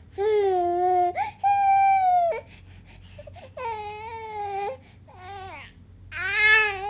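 An infant crying in a series of long wails with short pauses between them, the last few shorter and wavering in pitch.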